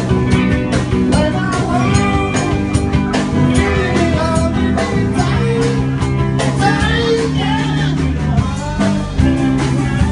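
Rock music with guitar, bass, drums and a sung or lead melodic line, at a steady beat.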